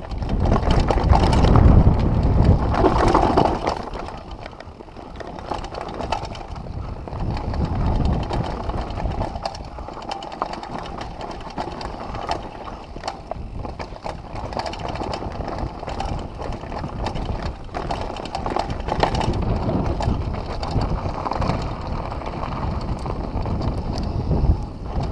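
Downhill mountain bike riding a dirt trail: a low rumble of tyres on the ground and wind on the microphone, with frequent rattles and knocks from the bike over bumps. The loudest stretch is in the first few seconds.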